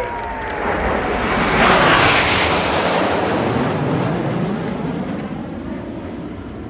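Formation of BAE Hawk T1 jets, each with a single Adour turbofan, passing by: a loud jet rush with a falling whine at the start, swelling to its peak about two seconds in and then slowly fading.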